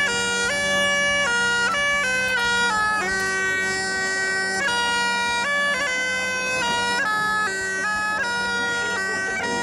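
Bagpipe playing a melody of held, stepping notes over a steady drone.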